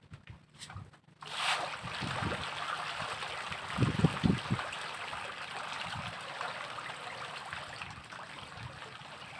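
Farmed fish in a floating net cage churning the surface in a feeding frenzy, a dense, steady splashing that starts suddenly about a second in as feed is thrown. A few dull low thumps come near the middle.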